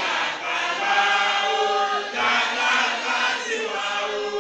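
A congregation chanting together in many voices, an Islamic devotional chant sung in unison at a steady, fairly loud level.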